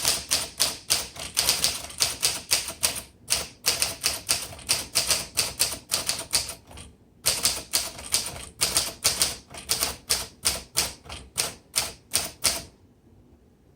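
Rapid typing on a 1941 Corona Sterling manual typewriter: a fast run of key and typebar strikes, with short pauses about 3 and 7 seconds in, stopping near the end. The keys are working freely, with none sticking.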